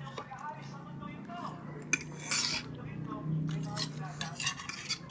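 Metal forks clinking and scraping against plates as food is picked up, in scattered short clicks and a few brief scrapes.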